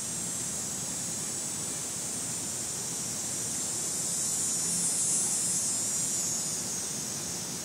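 Cicada buzzing in a continuous high-pitched drone that swells to its loudest about five seconds in, then eases off near the end.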